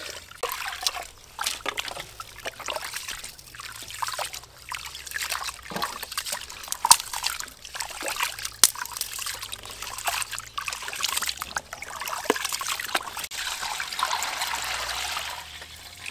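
Raw rice being washed by hand in a metal pot: water poured in, then the grains rubbed and swished in the water with irregular splashes and sloshes. Near the end the milky rinse water is poured off into a basin in a steady stream.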